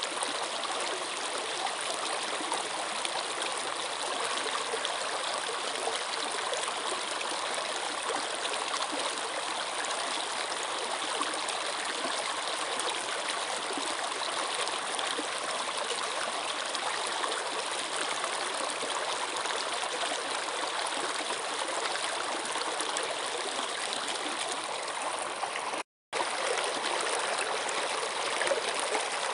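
Stream water flowing steadily with an even trickling rush, cutting out to silence for a moment near the end before resuming.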